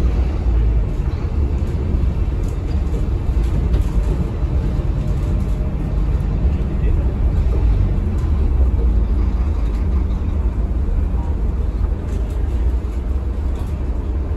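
Scania DC9 five-cylinder diesel engine of a rear-engined Scania K320HB city bus running steadily under way, heard from inside the passenger cabin as a low rumble.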